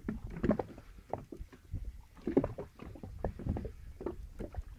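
Small waves lapping and slapping irregularly against the rubber tube of an inflatable boat, in uneven low gurgling surges.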